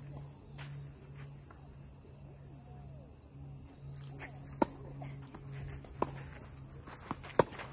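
Tennis racket strikes on the ball: a sharp serve hit about halfway through, a return about a second and a half later, and two more hits near the end. Behind them runs a steady high drone of insects.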